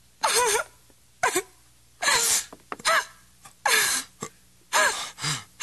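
Anguished human cries and gasps, about six short ones roughly a second apart, each bending up and down in pitch.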